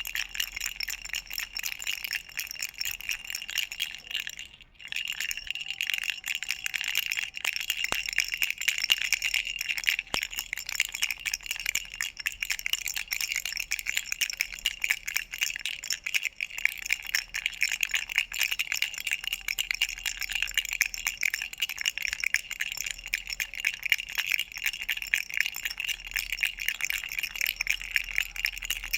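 Baby's duck rattle toy shaken without pause, a fast, dense jingling with a bright bell-like ring. It stops for a moment about five seconds in, then goes on.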